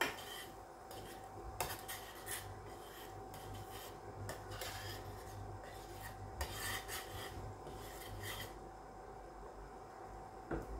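Metal spoon scraping and stirring chopped onions frying in a stainless steel skillet, in irregular bursts of rasping scrapes that die away near the end.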